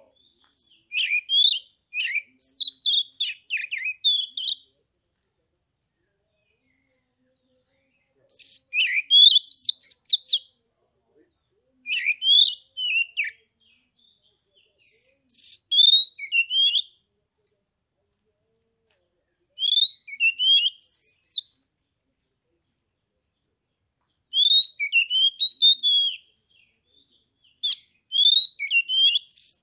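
Caged oriental magpie-robin singing: about seven loud bursts of sliding whistled notes mixed with sharp high chips, each burst a second or few long, with pauses of a few seconds between them.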